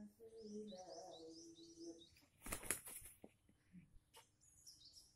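Junglefowl rooster flapping its wings in a short loud flurry about halfway through as two cocks spar, with a few soft knocks after it. High chirping of small birds runs underneath.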